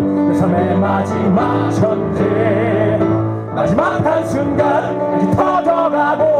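Male voices singing a musical-theatre song over held instrumental accompaniment: one man sings first, and several men sing together in the second half.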